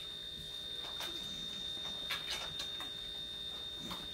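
A few faint clicks and taps of a plastic syringe and vaccine vial being handled, with the strongest pair about two seconds in. A steady high-pitched whine runs underneath.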